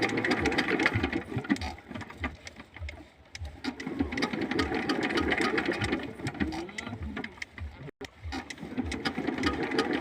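Small engine running steadily with a regular beat, dropping away briefly twice.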